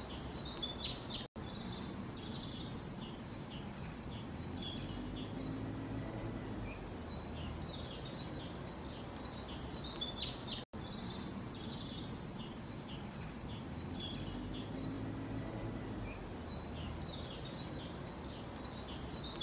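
Small songbirds chirping and trilling in quick high phrases over a steady low background rumble. The sound cuts out for an instant twice, and the same run of calls seems to come round again about every nine seconds.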